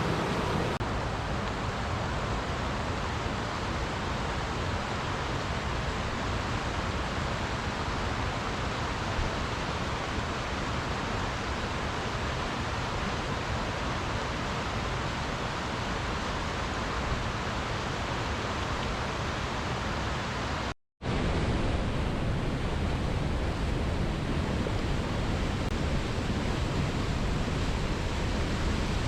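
Flowing water rushing steadily, with a brief cut to silence about two-thirds of the way through before the same rush resumes.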